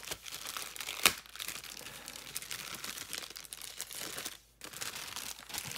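Plastic packaging crinkling and rustling as it is handled and opened, with one sharp snap about a second in.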